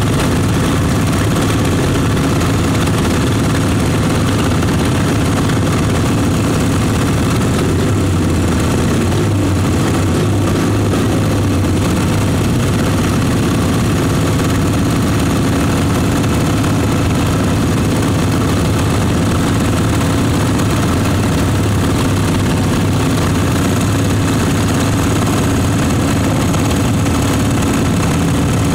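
Racing lawn mower's engine idling steadily, heard up close from on board the stationary mower.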